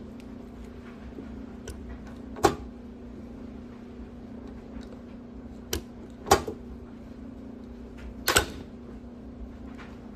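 Rivet tool setting 1/8-inch steel-to-steel rivets: three loud, sharp snaps as the rivets set, with a smaller click or two between them, over a steady low hum.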